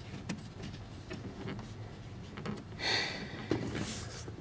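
Faint handling noise from a soldering iron handpiece and its cord being moved: a few light clicks and a short rustle about three seconds in.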